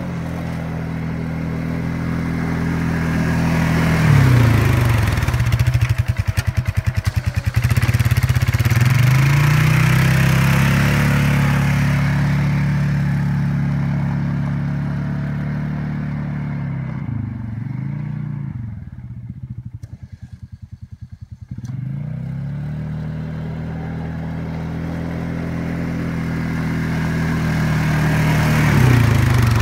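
Polaris 570 ATV engine running as it pushes a snow plow blade, its pitch rising and falling as the rider eases off and gets back on the throttle. It drops quiet for a few seconds past the middle and grows loud again near the end as the machine comes close.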